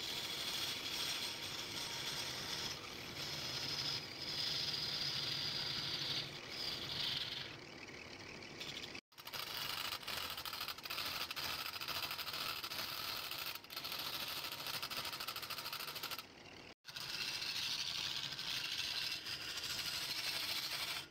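Wood lathe running while a turning tool cuts the spinning wood: a steady rushing, hissing noise. It cuts off abruptly and resumes twice, about nine and seventeen seconds in.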